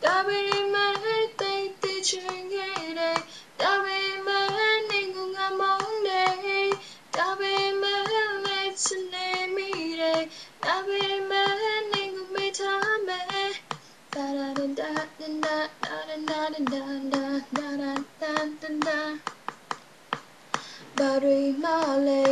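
A young woman singing a melody on her own, in phrases of held notes; her voice drops to a lower pitch about two thirds of the way through. Short light clicks run through it.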